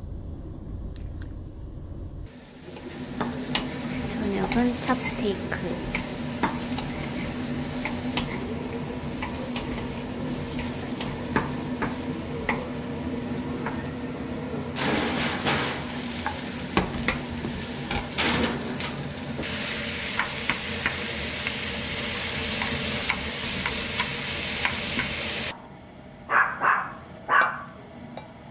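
After a low rumble in the first two seconds, cubed beef and vegetables sizzle in a frying pan while being stirred and scraped with a wooden spatula, with many small clicks and a steady hum underneath. Near the end the sizzling cuts off and a small dog barks several times.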